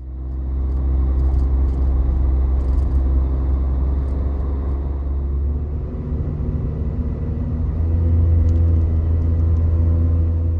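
Car engine running under way, a loud low drone whose pitch drops about six seconds in and rises again near eight seconds.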